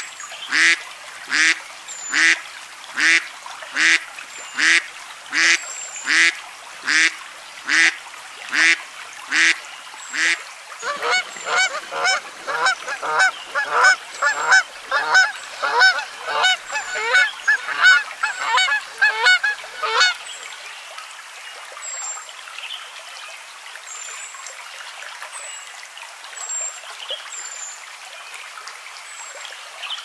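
Goose honking: one honk about every second for roughly the first ten seconds, then a flock of Canada geese honking over one another until about twenty seconds in. After that, only a faint steady hiss with small, high bird chirps.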